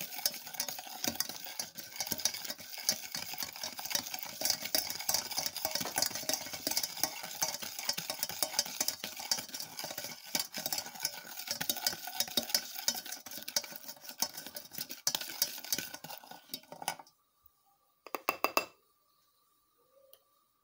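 Eggs and sugar being beaten by hand in a bowl: fast, steady clicking and scraping of the whisk against the bowl. It stops abruptly near the end, followed by a brief clatter.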